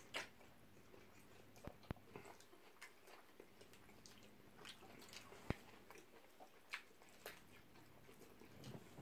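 Faint chewing and mouth sounds of people eating shawarma wraps: scattered short wet clicks and smacks.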